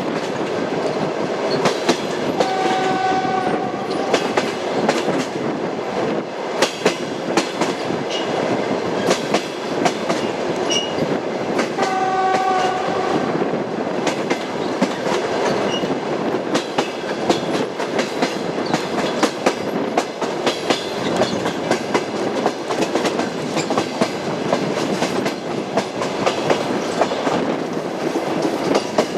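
Passenger train running: a steady rumble with the irregular clickety-clack of wheels over rail joints. Two short horn tones, each about a second long, sound about ten seconds apart.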